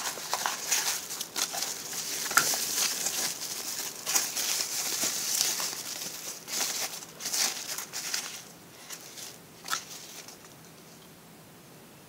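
Packaging crinkling and rustling as it is handled, with a few sharp clicks and taps; it dies down about ten seconds in.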